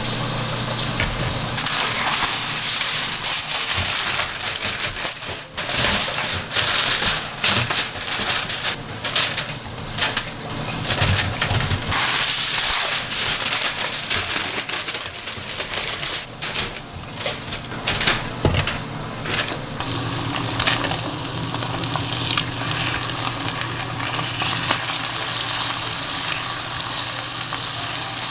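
Kitchen prep and cooking sounds: rustling of leafy greens and crinkling aluminium foil with dense crackling, then, over the last several seconds, a steadier sizzle as cubes of tofu pan-fry and are turned with a spatula.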